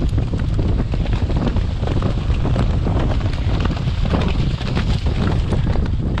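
Wind buffeting a jockey's helmet-camera microphone at a full gallop, with the racehorse's hoofbeats and irregular knocks heard through it.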